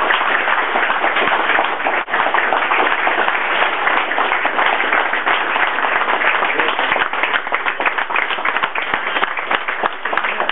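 A small crowd applauding, many hands clapping in a dense, steady patter that thins into more separate claps near the end.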